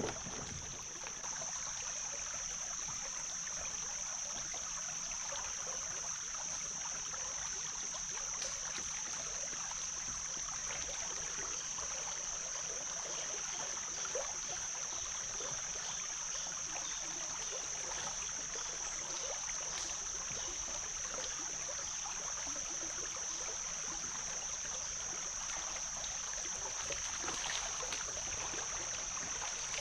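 Steady trickling, rushing water, with a steady high-pitched whine throughout and a few faint ticks.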